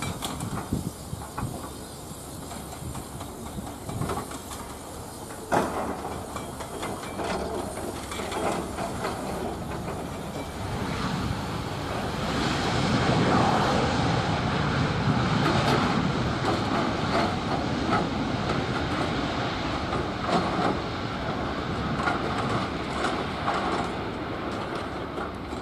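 Airbus A320 jet engines on landing: a steady rushing jet noise with a sharp thump about five seconds in. About twelve seconds in the rush swells and stays loud, the typical sound of reverse thrust on the landing roll.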